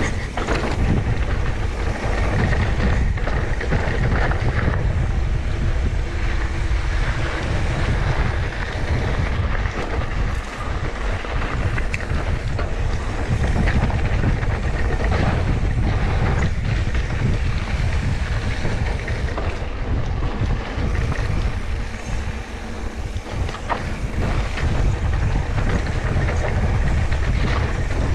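Riding noise on an action camera: wind rushing over the microphone with a heavy low rumble, mountain bike tyres rolling over a dirt trail, and scattered knocks and rattles from the bike over bumps.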